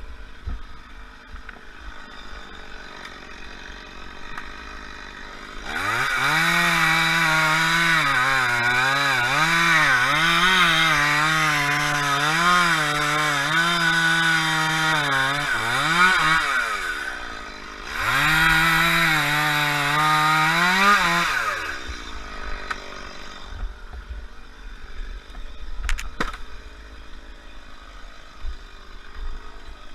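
Two-stroke chainsaw at full throttle cutting. Its pitch wavers up and down as the chain bites. It runs in one long stretch of about ten seconds, then a second of about three seconds after a brief drop, before falling away.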